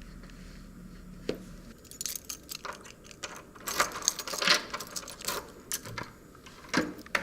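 Small hard objects being handled, clinking and rattling in an irregular run of sharp clicks, starting with one click about a second in.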